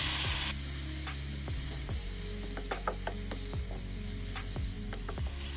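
Grated shallots and garlic frying in margarine in a small nonstick pan, the sizzle dropping suddenly to a faint hiss about half a second in. Scattered clicks and taps of a wooden spatula stirring against the pan.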